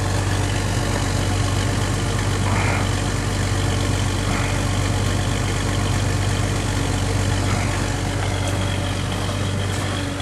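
Jeep YJ's engine idling steadily at the tailpipe, warming up shortly after a cold start in sub-zero cold.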